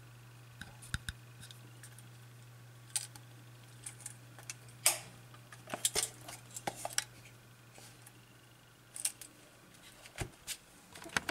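Scattered small clicks and knocks as a Kiev 6C medium-format SLR body and its parts are handled, over a steady low hum that stops about ten seconds in.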